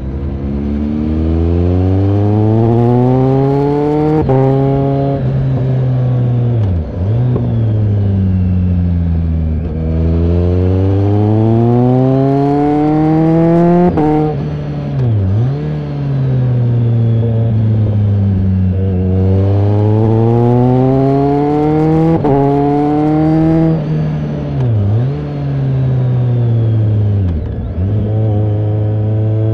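BMW K1300R's inline-four engine through an AC Schnitzer exhaust, rising in pitch under acceleration and falling back off the throttle in repeated cycles, about three climbs in all. Several short, sharp dips in pitch break up the falling stretches.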